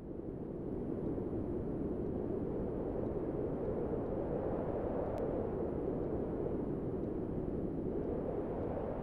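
Steady rushing wind, fading in over the first second and then holding even.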